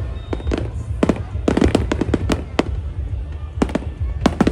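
Aerial fireworks bursting in a rapid, irregular string of sharp bangs, several close together at a time, over a constant low rumble.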